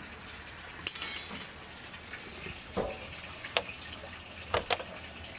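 A few short, sharp clicks and clinks, with a brief rattling hiss just after the first one about a second in.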